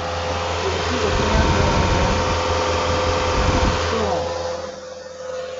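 A car's electric radiator cooling fans running with the engine idling: a steady rush of air over a low engine hum, easing off after about four seconds. The fans have switched on because the coolant is at full operating temperature, with the thermostat open.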